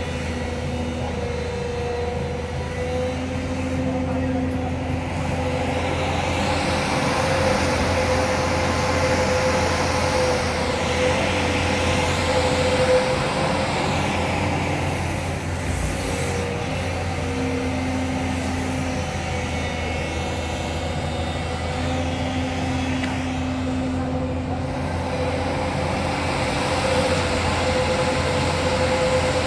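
JCB excavator's diesel engine running steadily under load as it digs, with a whine and hiss that swell and fall back several times as the hydraulics work the arm and bucket.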